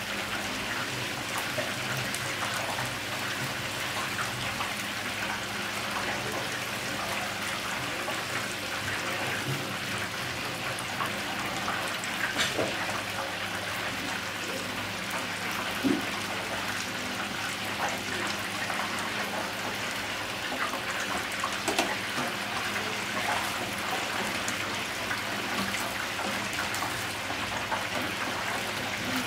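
Hot oil in a deep fryer sizzling and crackling steadily as duck wings fry, with a few sharper pops, over a low steady hum.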